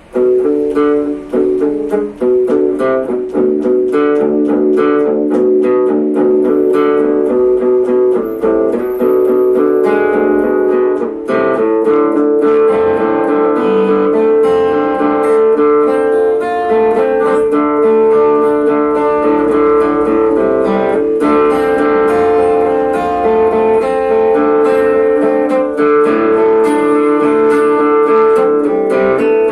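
Guitar music in a Tuareg style: quick plucked melody lines over steady droning notes, starting abruptly and loud.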